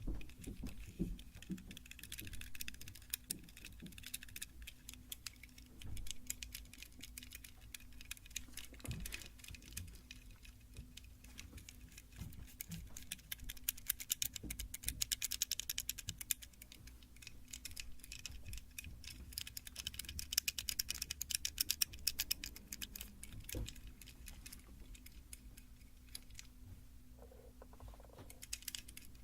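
Close-miked ASMR trigger sounds: rapid, light clicking and tapping on a small hard object in dense flurries, strongest in two bursts around the middle and about two-thirds through.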